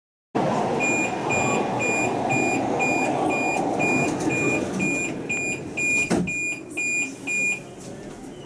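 Metro carriage door warning beeping: a string of short, high, evenly spaced beeps, about two a second, for some seven seconds over the steady noise of the carriage, with a sharp knock about six seconds in. The beeping warns that the doors are about to close before the train departs.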